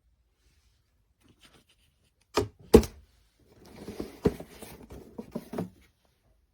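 Objects being handled: two sharp knocks, then a couple of seconds of rustling with several clicks and taps in it.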